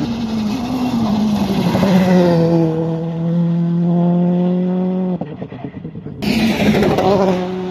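Rally car engine at high revs, its pitch dropping over the first two seconds and then holding steady. The sound dips briefly about five seconds in and returns with added hiss.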